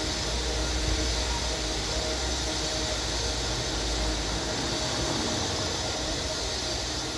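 City street ambience: a steady hiss of background noise with a low rumble that drops away a little past halfway through.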